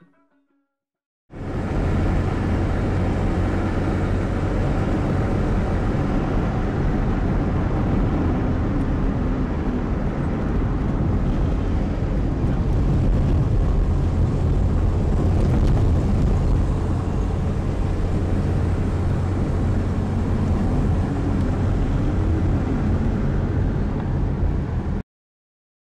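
Steady engine and road noise from inside a moving vehicle, starting abruptly about a second in and cutting off suddenly near the end.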